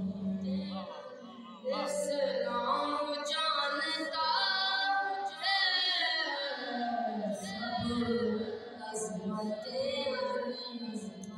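A boy singing a devotional Urdu kalaam unaccompanied into a microphone, in long, wavering held notes.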